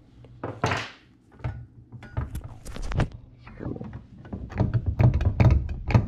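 Irregular clicks and knocks of metal parts being handled as the sheet-metal motor bracket of a Chamberlain garage door opener is worked loose on the motor shaft, busier and louder near the end.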